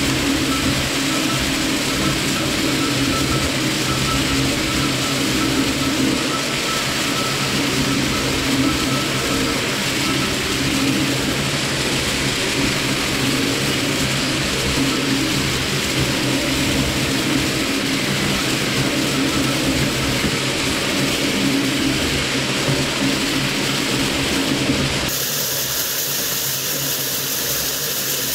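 Twin-shaft shredder running steadily, its interlocking cutter discs tearing up aluminium kitchen foil fed from a roll. The sound shifts abruptly to a slightly quieter texture near the end.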